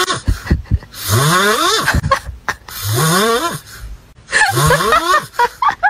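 A sleeping puppy snoring loudly, a snore about every one and a half seconds. Each snore rises in pitch and has a rough, hissing edge.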